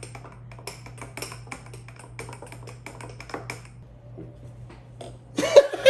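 A quick, irregular run of light taps and clicks at a tabletop, about four or five a second, stopping about three and a half seconds in. A man's loud burst of laughter breaks in near the end.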